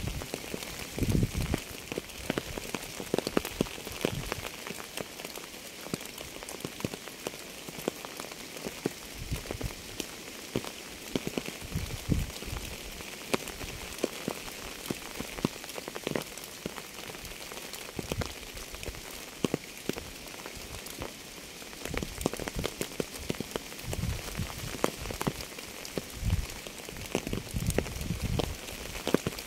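Steady rain, an even hiss full of quick individual drop ticks, with louder, deeper drop hits landing irregularly, fewer of them through the middle stretch.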